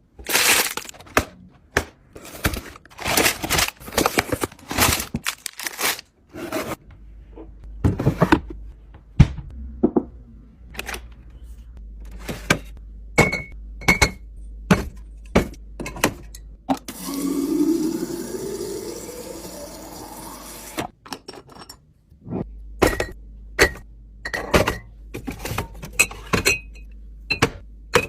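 Kitchen containers, jars and lids being handled and set down: a long run of sharp clicks, knocks and a few brief clinks. For about four seconds in the middle, liquid is poured into a container, its pitch rising as it fills.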